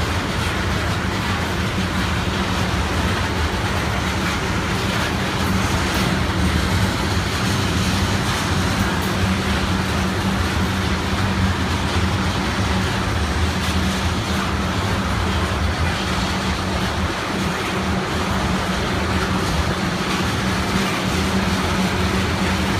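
Freight train of tank cars rolling past: a steady rumble of steel wheels on rail with a low hum under it.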